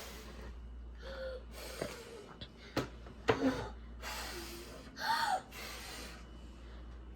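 Young children blowing at a birthday candle: a few short, breathy puffs, the clearest about four and five seconds in, the second with a small voiced gasp, plus a couple of faint clicks.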